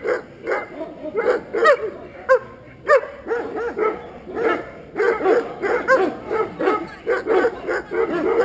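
A dog barking over and over, two or three barks a second, with a quieter stretch in the middle. These are guard-dog barks at strangers approaching during a protection test.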